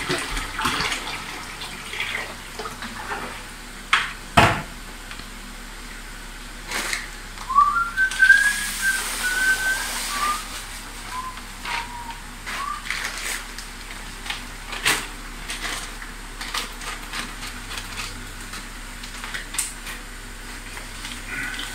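A person whistling a few short notes, about eight seconds in. Occasional sharp knocks, the loudest about four seconds in.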